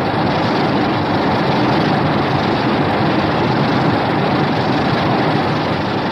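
Heisei Godzilla beam-attack sound effect: a loud, steady rushing blast with no clear pitch, beginning to tail off near the end.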